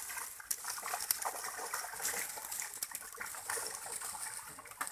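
Water splashing and churning as many netted fish thrash at the surface, a busy patter of small splashes.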